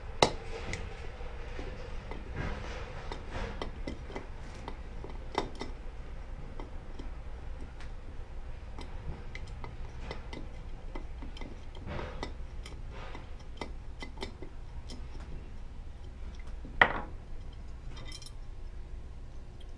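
Small metal clicks and clinks of a screwdriver and the two Phillips screws that hold the lever on a BelGAS P300 gas regulator's cast body as they are worked loose. Sharp clicks come just after the start and about five seconds in, and the loudest comes near the end.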